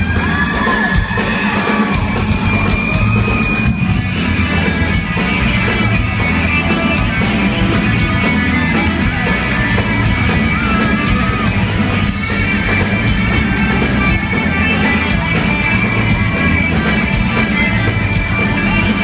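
Live rock music from a band playing in a concert hall, loud and continuous with a steady drum beat.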